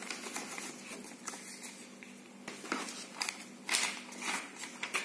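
Paper instruction booklets and cards rustling and flapping as they are handled and lifted out of a cardboard camera box, in irregular short strokes that grow louder near the end.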